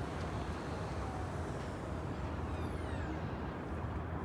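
Steady rumble of distant city traffic, with a faint high-pitched squeal that slides down in pitch about two seconds in.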